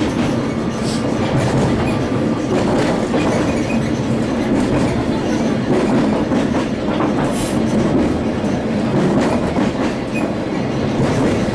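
Sagano scenic train running along the track, heard from aboard the carriage: a steady rumble of wheels on rails with scattered clicks and rattles, and a short high squeak about two-thirds of the way through.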